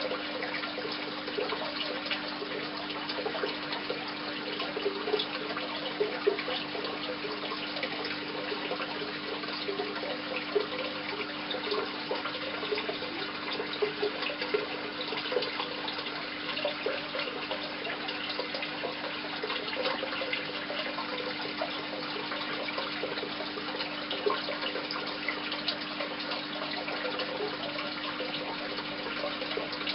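Aquarium water circulating: a steady trickling and bubbling, with a constant low hum underneath.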